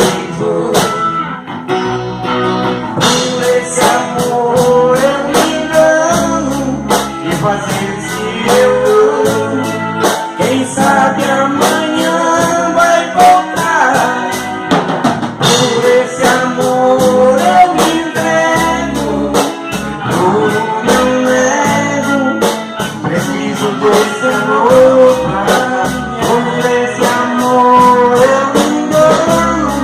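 Band music: a steady drum beat under a guitar-led melody, with no sung words.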